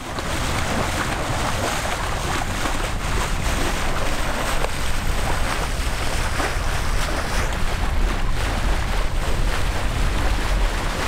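Bow wave rushing and hissing along the hull of a sailing yacht under way, with wind buffeting the microphone as a low rumble.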